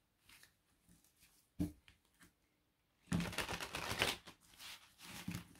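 A deck of cards shuffled by hand: a few faint ticks, then a dense papery rustle of shuffling about three seconds in, lasting a little over a second, with softer shuffling after.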